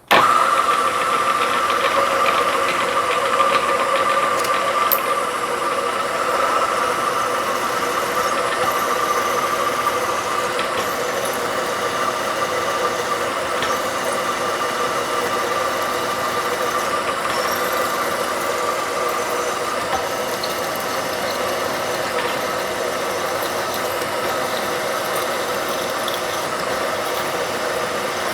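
CNC knee mill spindle running and cutting an aluminium plate, a steady high whine.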